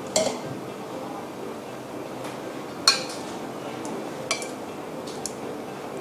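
Metal kitchen tongs clinking against a ceramic serving plate as food is arranged: a handful of short, sharp clinks, the loudest about three seconds in, over a steady low room hiss.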